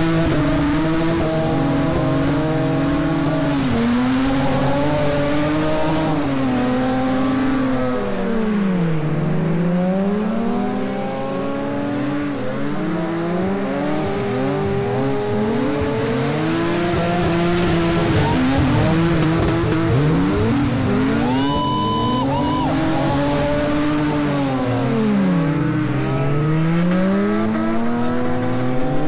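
MK4 Toyota Supras' inline-six engines revving hard while ice drifting, the pitch climbing and dropping again and again as the drivers work the throttle through the slides, with more than one engine heard at once.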